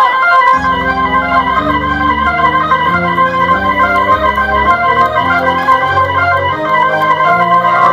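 Live rock music led by a Hammond organ through a concert PA: high notes held steady over low notes that come in about half a second in and step through a chord sequence, changing about once a second. A guitar bend trails off at the very start.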